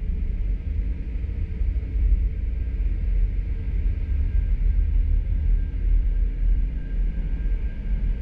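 A GE P42DC diesel locomotive moving slowly past at close range, with a deep, steady engine rumble and the train's running gear on the rails.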